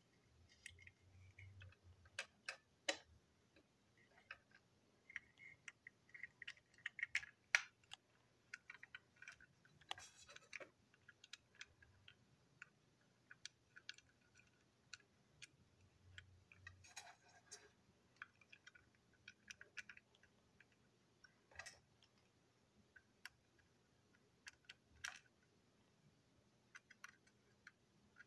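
Quiet, irregular clicks and taps of small plastic toy-train parts being handled and fitted together, with a small screwdriver touching the parts, as a TrackMaster coach is reassembled.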